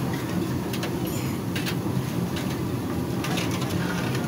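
Steady low roar of a gas burner used for frying jalebi, with several light metallic clinks of a perforated ladle against an aluminium pot of sugar syrup.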